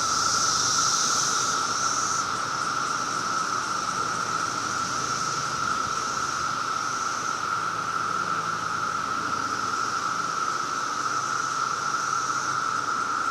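Chorus of Brood X periodical cicadas: a non-stop, steady drone held at one pitch, like a home burglar alarm, with a higher hiss over it that is stronger for the first couple of seconds.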